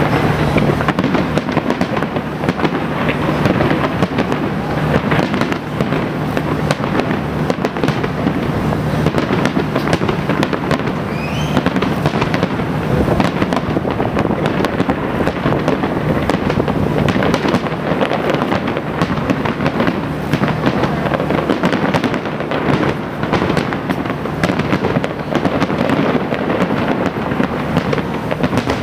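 Large fireworks display going off continuously: a dense, unbroken barrage of bangs and crackling. A short rising whistle cuts through about eleven seconds in.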